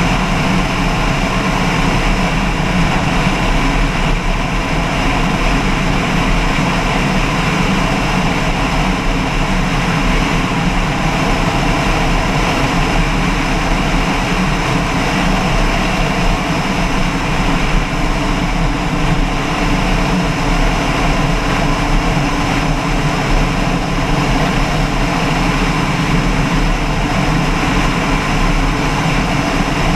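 Engine running steadily at an unchanging speed, loud and continuous.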